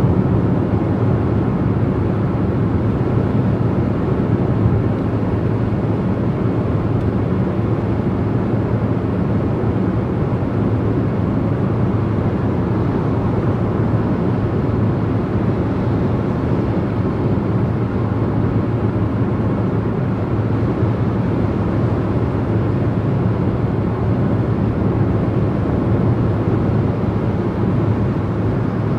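Steady road noise of a car driving along a motorway: tyre and wind noise with a low hum, holding level without any change.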